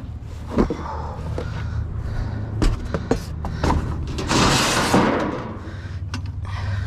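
A series of knocks and thuds, with a louder rushing noise lasting about a second about four seconds in, over a steady low hum.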